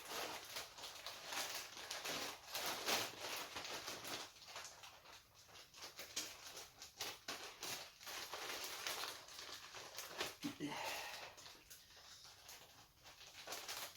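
A pocket knife cutting open a package, with irregular scratching, crinkling and rustling of the packaging and many small clicks.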